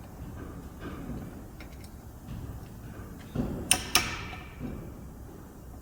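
Metal tools and door-hinge parts being handled at a vise: light scattered clicks, then two sharp ringing metal clinks about a third of a second apart, a little under four seconds in.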